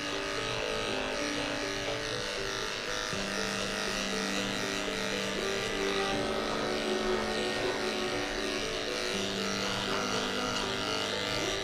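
Electric dog grooming clippers buzzing steadily as they shave through a severely matted coat, under background music with a slow melody.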